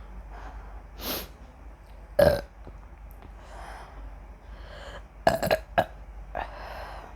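A woman burping repeatedly as the gas from gulped Coca-Cola comes back up. There is a loud burp about two seconds in, a quick run of three short burps a little after five seconds, and one more near the end.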